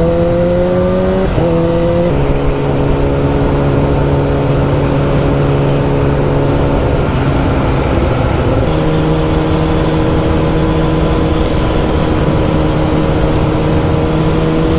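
A 1000 cc litre-class superbike engine running at a steady cruise, with wind rush over it. The engine note steps down about two seconds in and climbs a little past halfway.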